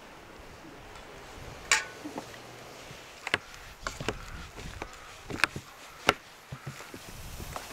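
A handful of sharp, irregularly spaced knocks and clicks, like light blows or taps on wood, over a faint steady hiss.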